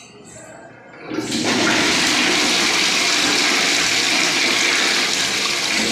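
Toilet flushing: water rushes in suddenly about a second in and runs on steadily, as newly fitted bathroom plumbing is checked with water.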